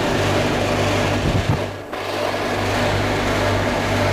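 Refrigeration condensing unit running: the three-phase compressor's steady hum with the condenser fan's rush of air, heard close up. The sound dips briefly a little under two seconds in.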